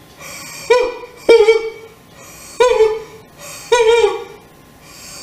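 A woman singing about four short, sharply attacked staccato notes on roughly the same pitch, each sagging and dying away at the end. This is a breath-support drill in which each note is bounced out by the lower abdominal muscles.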